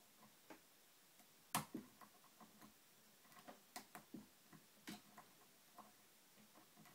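Faint, irregular clicks and ticks of a hook pick working the spring-loaded pins of a TrioVing oval lock cylinder under a tension wrench. There is a sharper click about a second and a half in.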